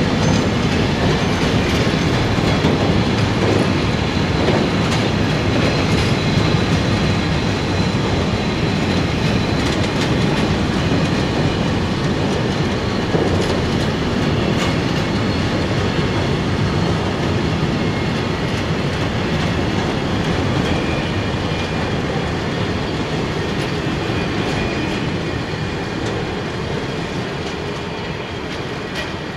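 A freight train's covered sliding-wall bogie wagons rolling past, with a steady rumble of steel wheels on the rails. The sound fades as the last wagon goes by near the end.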